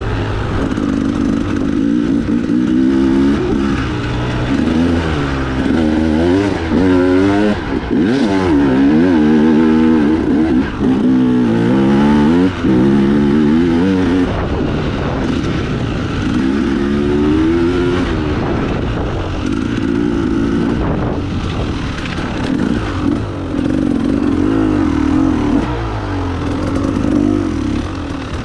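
Enduro dirt bike engine revving up and down over and over as it is ridden through a timed off-road test section. The pitch climbs and drops every second or two, with short throttle-offs in between.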